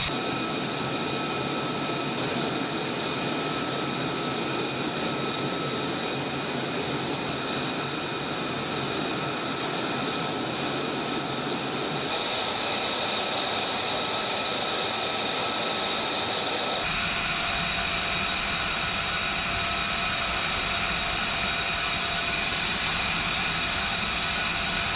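Jet engine noise, a steady rushing sound with a high whine on top, changing character suddenly twice as if at cuts between clips.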